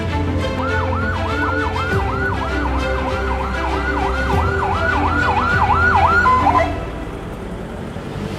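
Ambulance siren in a fast yelp, sweeping up and down about three times a second, then breaking off with a short steady tone near the end. Background music runs underneath.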